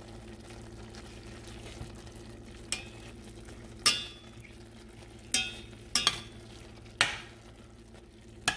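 Ground chuck sizzling as it browns in a stainless steel pan, stirred and scraped with a slotted spatula. Several sharp knocks of the spatula against the pan come mostly in the second half.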